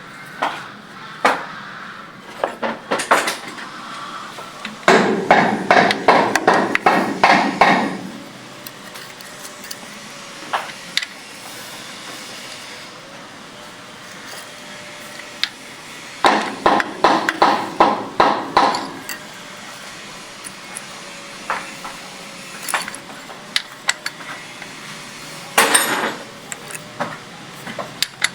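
Metal hand tools tapping and clinking on the valve gear of a Ford 5000 tractor engine during valve clearance adjustment. The strikes come in two runs of quick taps of about three seconds each, with scattered single clicks between them.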